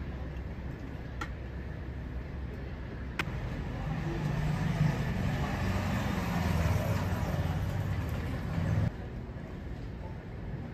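A motor vehicle's engine rumbling with road traffic noise, growing louder a few seconds in and cutting off suddenly near the end. Two light clicks come in the first few seconds.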